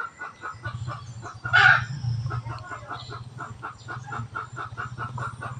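Animal calls: a rapid train of short, even pulses, about five a second, with one louder, higher call about one and a half seconds in.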